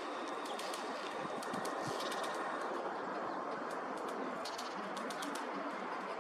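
Lesser spotted woodpecker pecking at dry wormwood stalks: several short runs of light, quick taps over a steady background noise.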